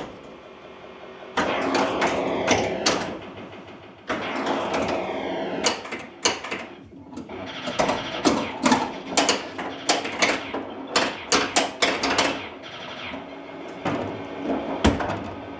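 1980 Williams Firepower solid-state pinball machine in play: rapid clacking of flippers, bumpers, targets and ball impacts, with bursts of falling electronic sound-effect tones. The clacks come thickest about halfway through.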